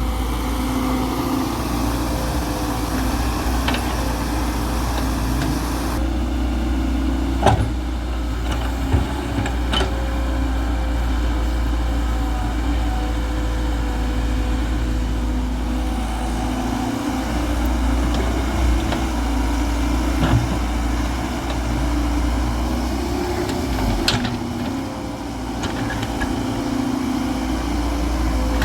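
Heavy diesel engine running steadily, with a few sharp knocks along the way, as an excavator loads mud into a tractor trolley.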